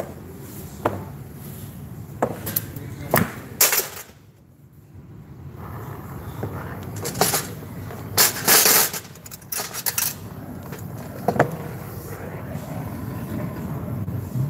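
Metal tools and fittings clinking and knocking as refrigeration repair gear is handled, in scattered sharp taps, with a cluster of louder clanks about eight seconds in. A steady low rushing noise builds underneath in the second half.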